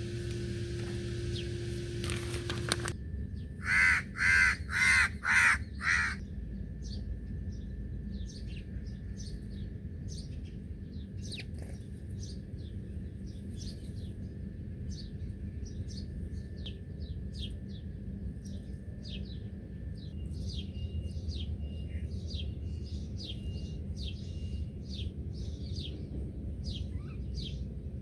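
A crow cawing five times in quick succession, loud and harsh, over many small birds chirping in the background. A steady hum in the first few seconds cuts off just before the caws.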